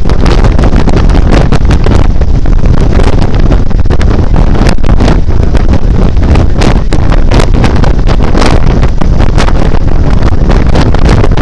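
Loud wind buffeting on the microphone of a moving motorcycle, a constant low rush broken by frequent gusty thumps, with vehicle noise underneath.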